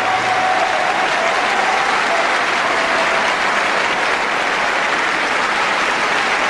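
Large concert-hall audience giving a sustained ovation after an operatic aria: dense, steady clapping that holds at one level throughout.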